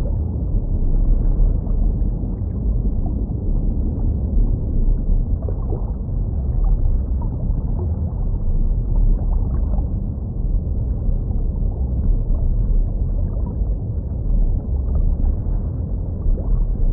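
Muffled underwater ambience: a steady low rumble with faint short blips scattered over it.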